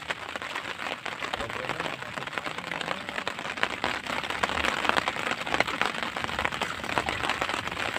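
Steady rain falling on lake water: a dense hiss of many small drop ticks.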